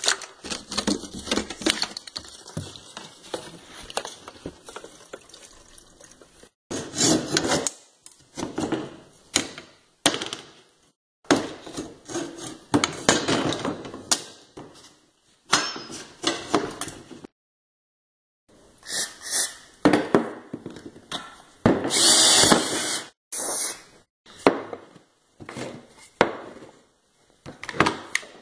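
Woodworking tool sounds in a series of short edited clips, separated by brief silent cuts: repeated stroking, scraping and knocking on wood.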